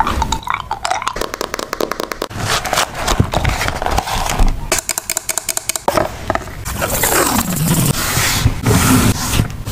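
Journaling materials being handled: two runs of rapid crackling clicks, then a longer stretch of scraping and rustling.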